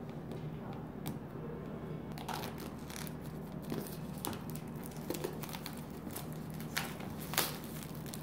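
Clear plastic shrink-wrap film being torn and peeled off a smartphone box, crinkling and crackling in short irregular bursts, with two louder crackles near the end, over a steady low hum.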